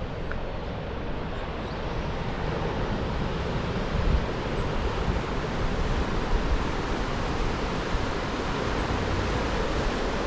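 Ocean surf washing onto a sandy beach, a steady rushing noise, with wind buffeting the microphone in low gusts.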